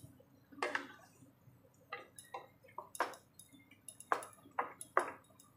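Cooking spoon knocking and scraping against a wok as the bitter gourd curry is stirred: a string of light, sharp clinks spread over a few seconds.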